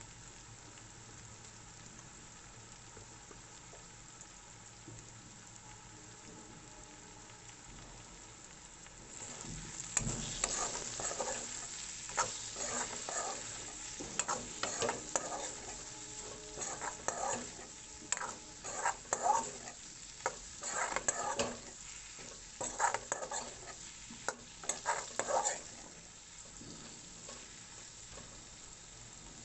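Potatoes frying in oil in a pan, sizzling, with a spatula stirring and scraping against the pan in irregular strokes from about a third of the way in until near the end; before and after the stirring only a faint sizzle.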